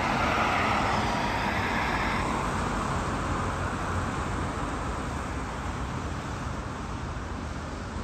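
Car tyres hissing on a wet road as a car passes, loudest at the start and fading over the first two seconds or so, then a steady, quieter wash of distant traffic.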